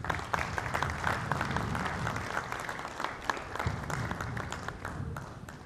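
Audience applauding, thinning out and fading near the end.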